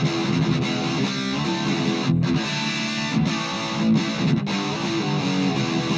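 Gibson SG Standard electric guitar played through a Marshall MG10CF combo amp on its overdrive channel, with the amp's contour (tone) knob turned to about 9 o'clock. There are brief breaks in the playing about two and three seconds in.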